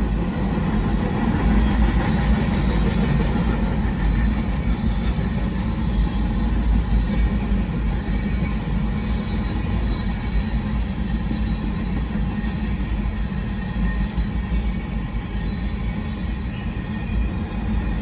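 Empty covered hopper cars of a freight train rolling by: a steady rumble of steel wheels on the rails, with a thin, high wheel squeal running over it.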